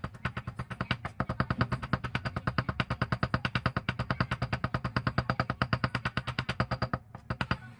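Cleaver chopping garlic fast on a wooden chopping board, a rapid even tapping of about nine chops a second, with a brief pause about seven seconds in.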